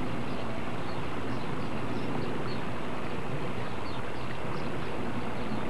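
Steady outdoor background noise with a low hum underneath, and short, faint bird chirps scattered throughout.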